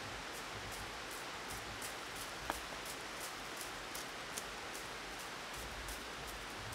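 Steady rush of a river flowing, with a faint high ticking about three times a second and one sharp little click about two and a half seconds in.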